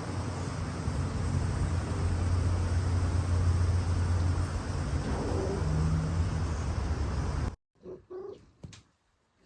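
Strong wind buffeting the microphone: a steady low rumble with hiss. It cuts off abruptly about seven and a half seconds in, leaving near silence with a few faint, brief sounds.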